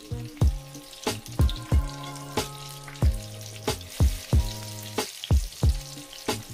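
Lumpia (vegetable spring rolls) deep-frying in a pan of hot oil, a steady sizzle, under background music with a regular drum beat and held chords.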